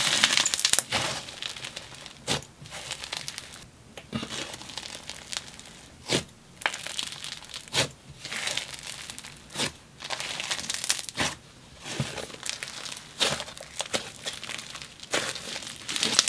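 Snow fizz slime squeezed and kneaded by hand, giving a crisp, sizzly crackling in repeated bursts, with sharp pops as it is pressed and pulled apart.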